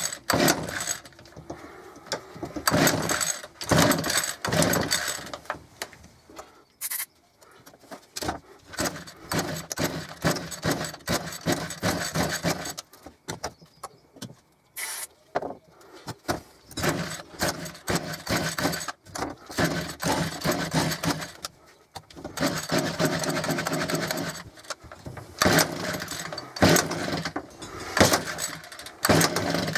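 Small two-stroke engine of a Sabre petrol hedge trimmer being yanked over again and again on its recoil starter. It coughs and catches for a second or two at a time without settling into a run. It is hard to start after a carburettor rebuild, which the owner puts down to a mistake in the carb's assembly or to old fuel.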